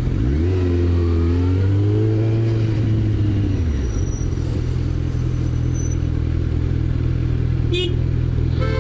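Motorcycle engine picking up revs just after the start, holding for about three seconds and dropping back, then running steady at low revs while the bike creeps through slow traffic.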